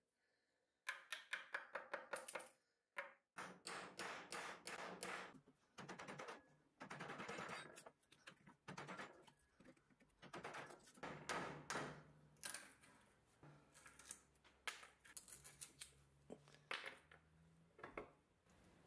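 Quick runs of light, sharp taps and knocks, several a second with short pauses between runs, from hand tools working a rusted steel shaft and a cracked wooden handle held in a bench vise.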